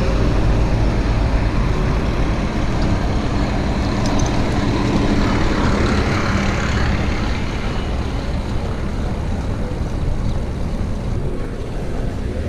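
Steady wind rumble on the microphone of a camera riding on a moving bicycle, mixed with road traffic noise.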